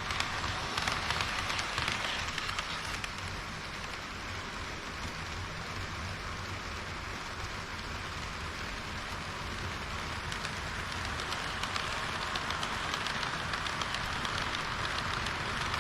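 HO-scale model train wheels rolling on the rails: a steady rolling rattle with fine clicks, thicker in the second half.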